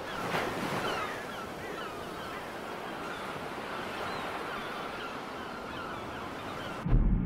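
Ocean waves washing steadily, with short high bird cries over them that are most frequent in the first couple of seconds. Near the end, a sudden deep, loud low sound cuts in.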